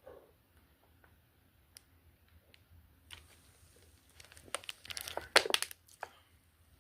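Crinkling and crackling, as of something being handled or crumpled, rising to a dense run of sharp crackles in the second half.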